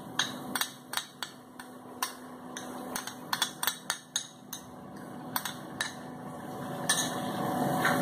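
Metal spoon tapping and scraping against a small glass bowl, knocking ginger-garlic paste into an aluminium pressure cooker: a run of sharp clinks that thins out about halfway through. A steady hiss grows louder near the end.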